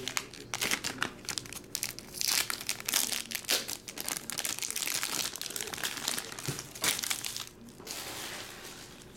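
Trading-card pack wrappers crinkling and tearing as packs are opened and handled, in quick irregular crackles.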